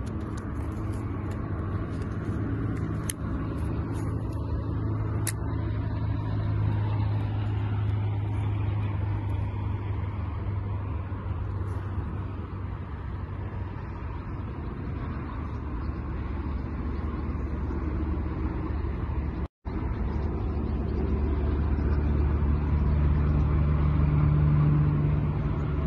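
A steady low hum of motor vehicles that grows louder near the end.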